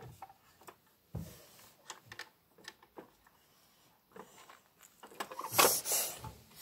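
Light clicks and knocks of a small plastic toy fridge door being opened and toy kitchen pieces handled, then a louder rustling shuffle near the end.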